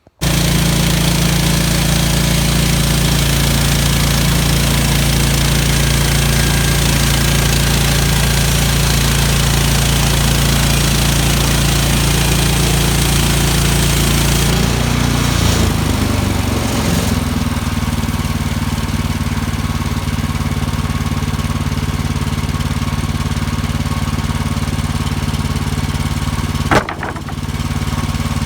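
Small petrol engine of a portable bandsaw sawmill (Woodland Mills HM130 Max) running steadily. Its note shifts about halfway through, and there is a sharp click near the end.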